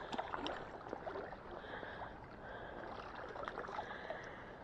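Lake water sloshing and lapping around the legs of people wading through shallow current, with scattered small splashes and clicks.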